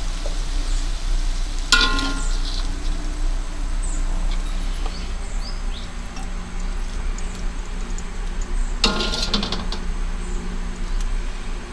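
A metal ladle clinks against cookware twice, about two seconds in and again about nine seconds in, each time with a short metallic ring, as cooked chicken is scooped from a wok into an enamel pot. A steady low hum runs underneath.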